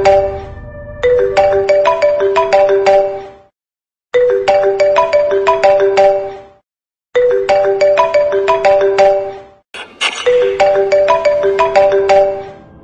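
Mobile phone ringtone: a short melody of separate struck notes, repeating four times about three seconds apart with brief silences between.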